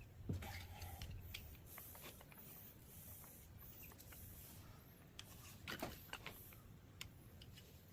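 Faint, scattered clicks and light knocks of metal parts and hand tools being handled during a lathe teardown. A sharper tick comes near the start and a couple more about two-thirds of the way through.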